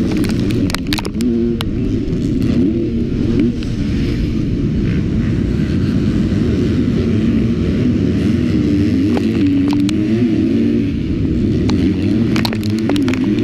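Onboard sound of a KTM four-stroke motocross bike engine at race pace, revving up and falling back again and again with throttle and gear changes. Sharp ticks near the start and again near the end are flying dirt striking the bike.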